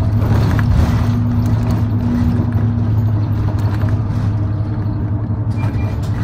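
Route bus heard from inside the passenger cabin: its engine runs with a steady low drone over road noise. Short, repeated high tones start near the end.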